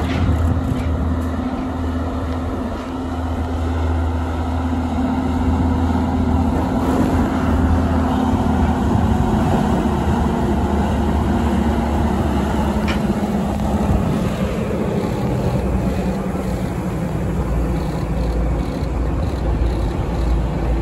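Diesel cog railway railcar climbing past, a steady low engine drone with rolling noise from the train. The drone's pitch holds steady until about two-thirds of the way through, after which a deeper rumble carries on.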